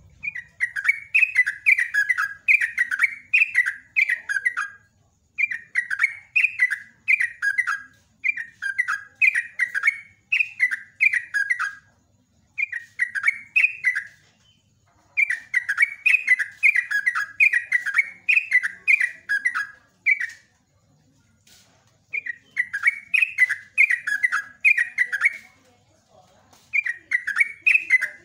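Caged yellow-vented bulbul singing long runs of rapid, sweeping notes. The song comes in phrases of a few seconds with short pauses between them.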